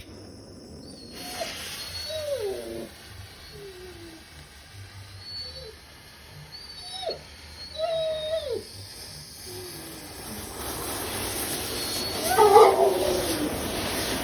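A homemade bright white pyrotechnic star burning with a steady hiss that starts about a second in and grows louder in the second half. A dog whines several times over it, in short falling calls.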